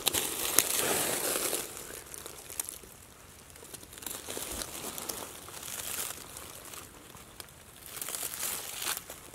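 Dry fallen leaves on the forest floor rustling and crunching, loudest for the first second or two, then softer rustles, rising again near the end as a hand reaches into the leaf litter.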